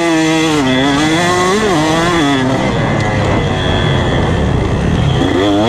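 2019 KTM 125 SX single-cylinder two-stroke dirt bike, fitted with a 150cc kit and an FMF exhaust, riding hard on a motocross track. The engine revs up and drops off sharply several times in the first two and a half seconds, then runs on loud and rough before climbing again near the end.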